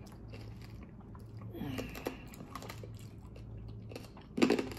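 Close-miked chewing of food, with small wet mouth clicks, a short hummed "mm" about halfway through, and a louder, brief crunch near the end.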